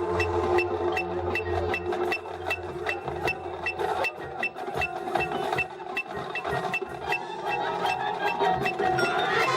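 Marching band music: a steady ticking percussion pulse, about three to four strokes a second, over held chords, with fuller chords swelling in near the end.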